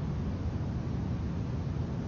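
Steady low rumbling noise with a fainter hiss over it, even throughout with no distinct events.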